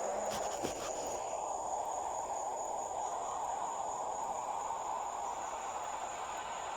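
Crickets trilling in one steady, high, unbroken note over a soft background hiss, with a few faint clicks about half a second in.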